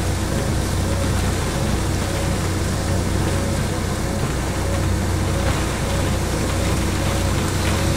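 Steady rush of floodwater pouring across a roadside verge in heavy rain, with a low rumble underneath.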